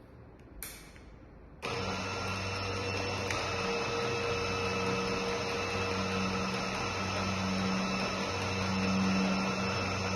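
Electric gate-opener motor starts abruptly about a second and a half in and runs with a steady hum, driving the gate in an automatic test run after limit-switch programming. A couple of faint clicks come just before it starts.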